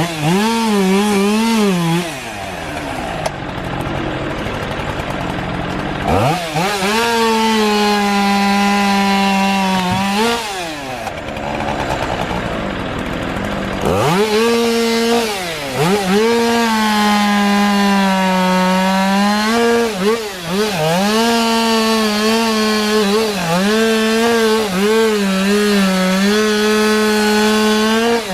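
Two-stroke chainsaw cutting into a storm-downed tree, run at high revs with its pitch sagging and recovering again and again as the chain bites. It eases off twice, about two and ten seconds in, then is run back up.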